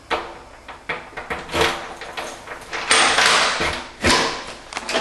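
A key rattling and clicking in a door lock as a front door is unlocked, with several sharp clicks and a longer, louder rasping rattle about three seconds in.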